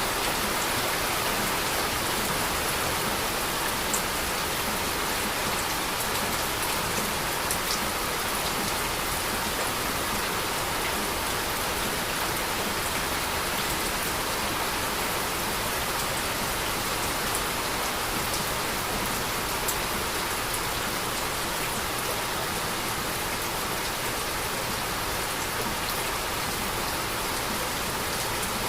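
Heavy, steady rain falling on a surface, an even hiss with scattered sharper drop ticks.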